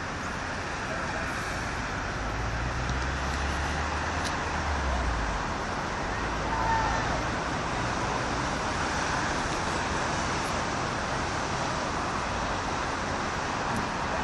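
Steady outdoor background noise, a hiss over a low rumble that swells about two seconds in and fades a few seconds later.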